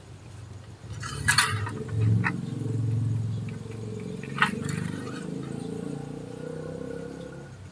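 Light metallic clicks and clinks of an engine-oil dipstick being handled while the oil level is checked, three sharp ones, over a low droning hum that swells about two to three seconds in and fades near the end.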